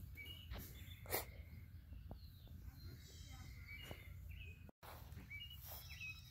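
Faint outdoor ambience: small birds chirping, with a short trill, over a low rumble. There is a sharp knock about a second in.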